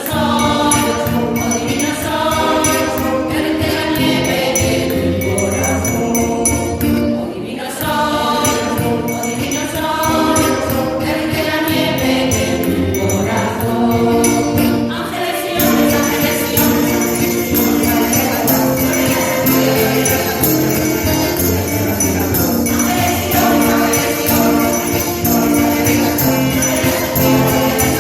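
Mixed choir singing a traditional Spanish Christmas carol (villancico), accompanied by jingling percussion that becomes more prominent about halfway through.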